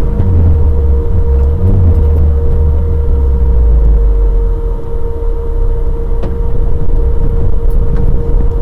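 Off-road vehicle's engine running loud and low as it drives over a muddy dirt track, picked up by a camera mounted on the vehicle, with a steady drone throughout.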